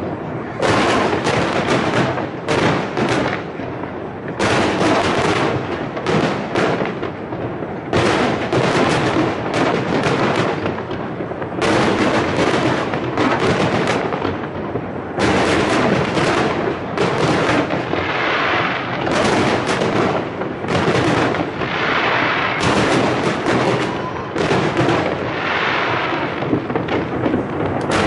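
Aerial fireworks display: a rapid, continuous barrage of shell bursts, bang after bang with no pauses.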